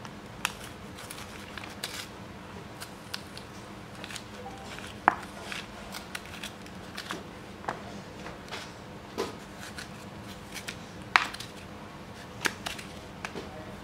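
A kitchen knife cutting into a hollow chunk of raw bitter melon to core out the white pith and seeds, making irregular crisp cutting crunches and clicks. Two sharper clicks come about five and eleven seconds in.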